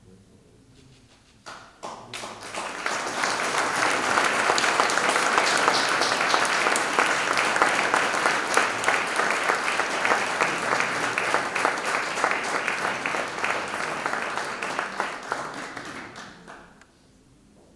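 Audience applauding: the clapping starts about two seconds in, swells quickly, holds steady, and dies away near the end.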